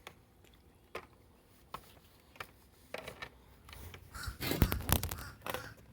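Adult blackbirds calling harshly from a tree, with a few scattered clicks and then a louder burst of knocking and scraping about four to five seconds in.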